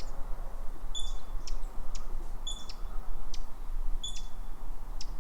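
A small bird repeating a short, high chirp about once every second and a half, with faint clicks in between, over a low steady background noise.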